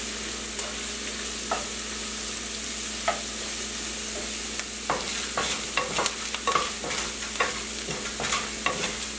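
Chopped onion frying in oil in a nonstick pan, a steady sizzle, with the scrapes and taps of a wooden spatula stirring it: a few at first, then many in quick succession from about halfway.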